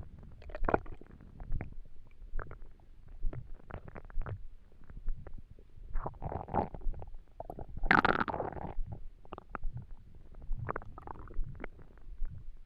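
Hungry, empty stomach gurgling and rumbling: a steady run of short pops and gurgles, with a longer, louder gurgle about eight seconds in.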